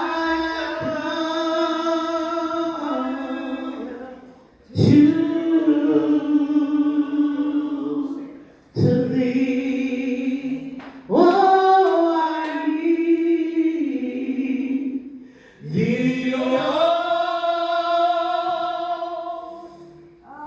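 Church worship singing: voices sing a slow song in long held notes, in about five phrases with short breaths between them.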